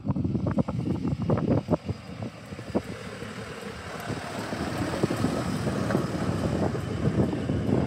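Hi-rail truck running along railway track and passing close by: its engine and wheels on the rails build steadily in level over the last few seconds. Wind buffets the microphone, with gusty knocks in the first few seconds.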